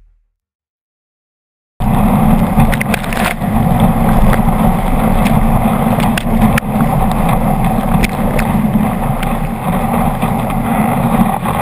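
Silence for nearly two seconds, then a sudden loud, steady rush of churning whitewater and spray against a sea kayak at a tidal rapid's standing wave, heard on the kayak-mounted action camera, with sharp splashes of spray striking it now and then.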